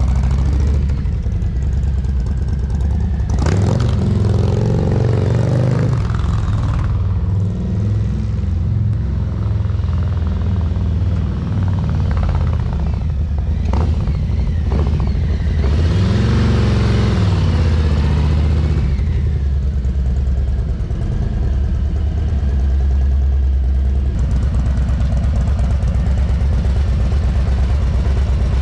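Harley-Davidson Low Rider ST's Milwaukee-Eight 117 V-twin running on a short ride: it revs up pulling away a few seconds in, rises and falls again as the motorcycle rides past about sixteen seconds in, and runs steadily near the end.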